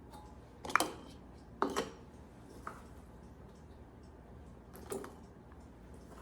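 Kitchenware clinking and knocking while canning jars and a pressure canner are handled: two sharp clinks about a second apart near the start, then another about five seconds in.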